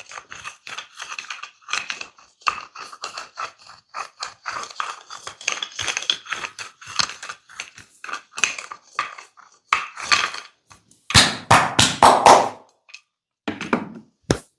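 Hands striking a person's head and shoulders in a massage: quick, even strokes about four to five a second, then about eleven seconds in a short run of about five much louder slaps, and a single sharp knock near the end.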